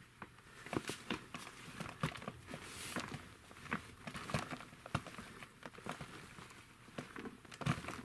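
Faint rustling and crumbling of worm castings pulled by hand from the bottom opening of a fabric worm bag and dropping into a plastic tub, with many small irregular crackles and pats.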